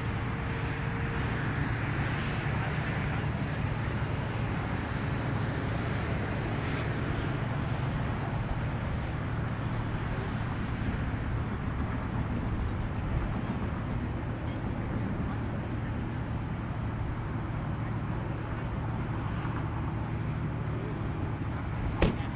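Steady low hum with an even background hiss, unchanging throughout, and one sharp click near the end.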